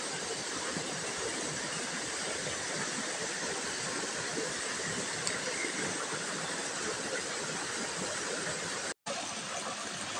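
Small stream pouring over rocks in a little cascade, a steady rushing water noise. It cuts out for an instant near the end.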